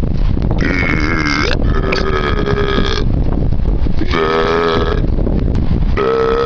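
A man belching four times, each burp long and pitched and lasting about a second, over a steady low background noise.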